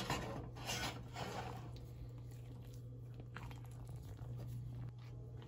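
Spatula folding a thick whipped-topping mixture in a glass bowl: soft wet squishing, strongest in the first second or two, then fainter, over a low steady hum.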